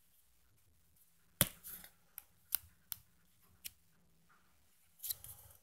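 Paper instruction booklet being opened and its pages flipped by hand: about six sharp paper snaps and flicks, the first the loudest, then a soft paper rustle near the end.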